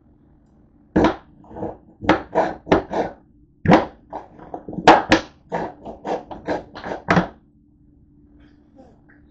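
A plastic squeeze bottle of pale sauce squeezed upside down, giving a quick, irregular run of about fifteen short, sharp squirts over some six seconds.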